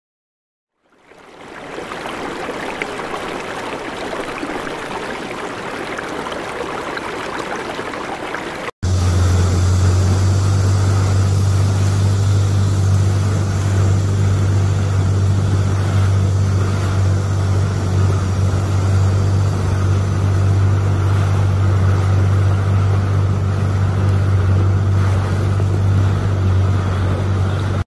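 Fast-flowing floodwater rushing. After a sudden cut about nine seconds in, louder rushing water with a steady low hum under it.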